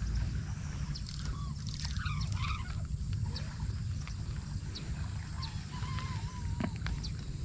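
Steady low rumble of wind buffeting the microphone, with scattered short high chirps and clicks over it and a brief wavering squeak about two-thirds of the way through.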